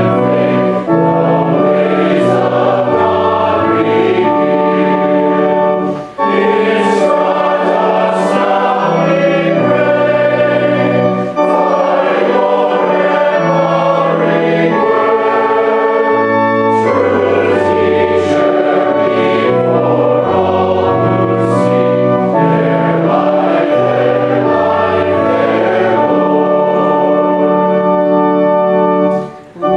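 A hymn sung by many voices with organ accompaniment, in held notes over a moving bass line, with short breaks between lines about six seconds in and near the end.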